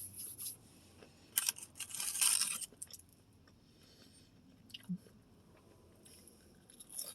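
Close-miked chewing and crunching of fried Popeyes food, with a louder crunchy burst about two seconds in and a few small clicks after.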